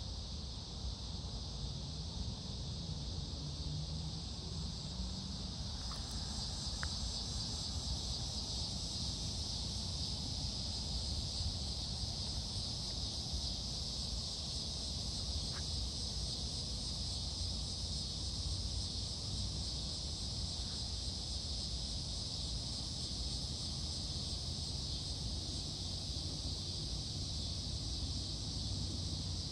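Steady insect chorus, a continuous high buzz, over a low steady rumble, with a couple of faint clicks.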